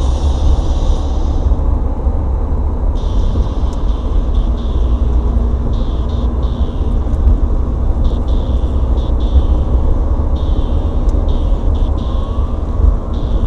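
Road noise inside a moving car, picked up by a dashboard camera: a steady low rumble of engine and tyres, with a higher hiss that comes and goes.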